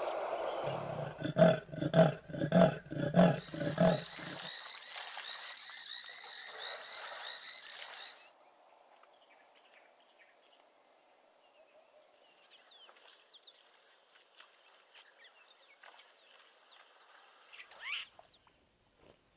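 Hippo grunting and honking, a rhythmic series of about nine low pulsed calls in quick succession over some three seconds, over a steady hiss. About eight seconds in the sound drops to faint bird calls, with one rising bird whistle near the end.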